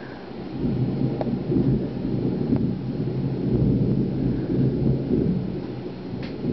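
Thunder: a low rumble that swells about half a second in and rolls on for several seconds, with a few faint ticks over it.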